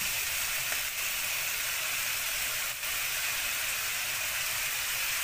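Onions and spices frying in oil in a nonstick frying pan: a steady sizzle, with a couple of faint ticks.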